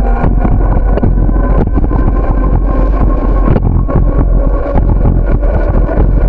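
Bicycle rolling along a concrete sidewalk: wind buffeting the microphone as a steady rumble, with frequent knocks and rattles from the bumps and joints in the pavement and a steady whine underneath.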